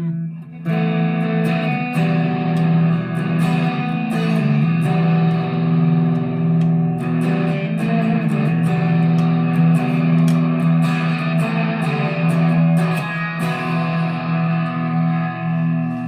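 Harley Benton TE-90 FLT electric guitar played through an amplifier: chords strummed over and over with notes ringing on between strokes. The guitar, fresh out of the box, sounds out of tune and rattly.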